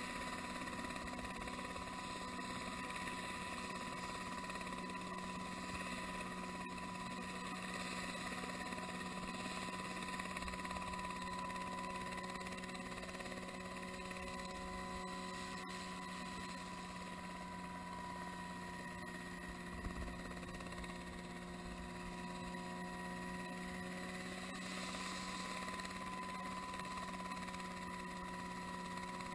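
Distant Dynali H3 ultralight helicopter on floats running on the water: a steady engine and rotor hum made of several held tones, with no real rise or fall.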